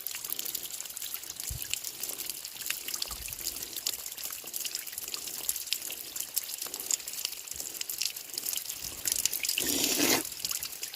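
Water trickling, with small drips and splashes and a louder rush of water for about half a second near the end.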